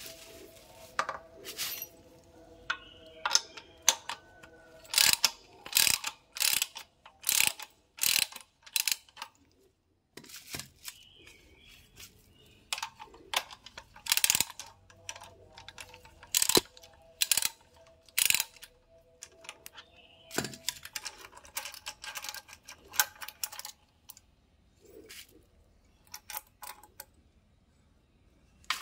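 Irregular clicks, clinks and knocks of small parts and hand tools being handled while a motorcycle rear-view mirror is taken apart and its mount fitted to another mirror. The clicks come in quick clusters with short pauses between them.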